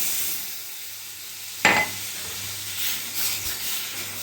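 Hiss of freshly poured milk in a hot pan of ghee-roasted gram flour, fading over the first second. A single sharp clink comes about a second and a half in, followed by light stirring scrapes in the pan.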